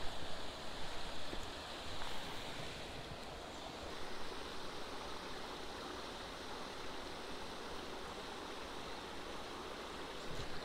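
Shallow creek water running over a small log-and-brush jam, a steady even hiss.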